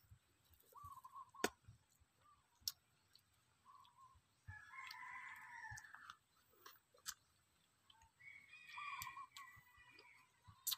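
A rooster crowing twice, about four and a half seconds in and again about eight seconds in, with shorter calls before the crows and a few sharp clicks between them.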